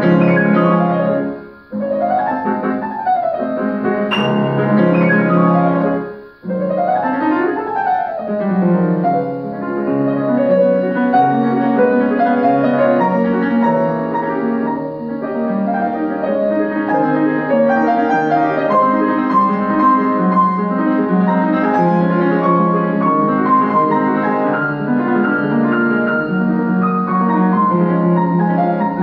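Solo grand piano played live: two quick sweeping runs up and back down the keyboard, each after a brief break, then a dense, continuous passage.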